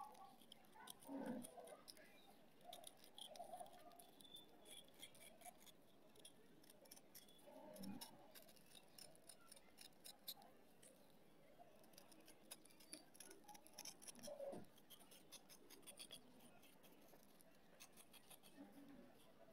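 Metal knife blade scraping the surface of a dried clay (multani mitti) ring: faint, dense, fine scratching with crumbs and powder falling away, broken by a few soft thumps about a second in, around eight seconds and near fourteen seconds.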